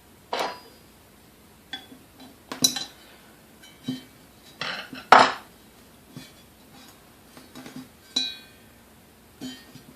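Irregular metallic clicks and clinks, about ten of them, some with a brief ring, the loudest about five seconds in: a tool working against the coffee mill's metal housing to pry out the clip that holds the bushing in.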